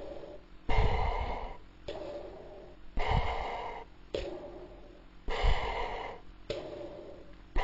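Darth Vader's mechanical respirator breathing: a softer hissing intake and a louder rasping exhale alternate about every second, about three full breaths, each pair sounding like "koo-pa".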